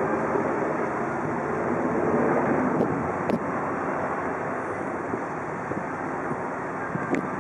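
Three SNCF electric locomotives, two BB 22200s and a BB 7200, running coupled together with no train behind them, heard as a steady rumble of motors and wheels on the rails. A few sharp clicks come about three seconds in and again near the end.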